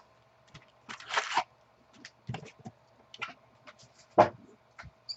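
Handling and opening a cardboard box of football trading cards: scattered scrapes, rustling and tearing, with a sharp knock about four seconds in.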